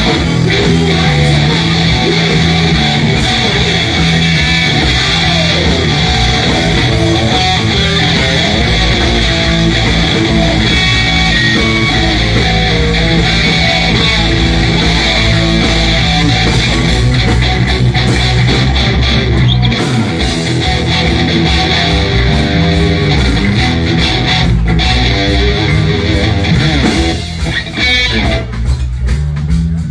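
Live blues band playing, with guitar to the fore over bass and drums; the music thins out and turns choppier near the end.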